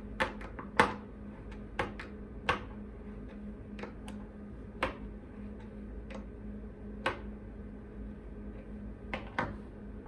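Sharp metallic clicks at irregular intervals, about eight in all, from a small wrench tightening a coaxial cable connector, over a steady low hum.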